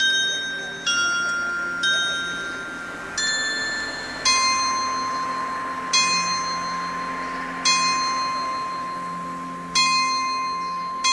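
A small carillon of bells on a town-hall façade. It plays the last few notes of its tune, each bell ringing on after it is struck. Then a single bell is struck over and over, about every two seconds.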